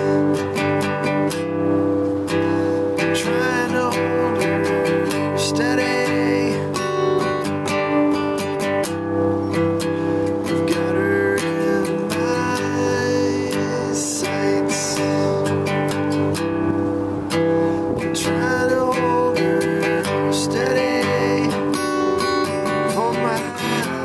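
Guitar strummed and picked, playing a song with steady chord strokes.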